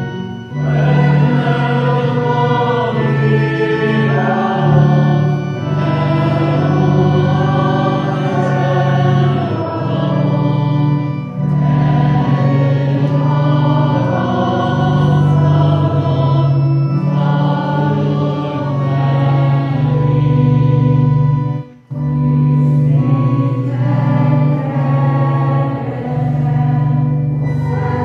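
Church congregation singing a hymn to organ accompaniment, the organ holding steady low notes under the voices. The music breaks off briefly about two-thirds of the way through.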